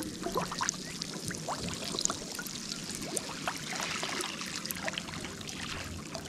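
Water splashing and trickling, a steady run of many small splashes and drips.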